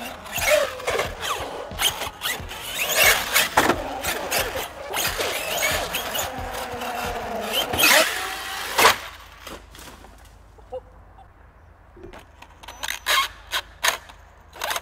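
Traxxas Sledge RC monster truck driving hard on concrete: its electric motor and drivetrain whine, rising and falling with the throttle, over tyre noise and knocks as it jumps and lands. The loudest impacts come about eight or nine seconds in. Near the end there is a run of sharp clicks and rattles. The pinion gear is damaged and already missing teeth, so the truck no longer sounds healthy.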